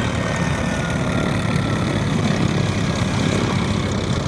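Steady engine rumble, with a faint high whine that slides down in pitch over the first two seconds or so.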